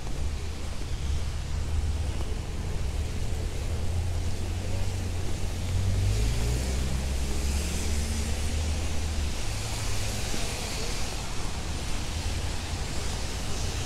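City traffic on wet streets: a steady low engine rumble, with tyre hiss on wet pavement swelling through the middle as vehicles pass and easing near the end.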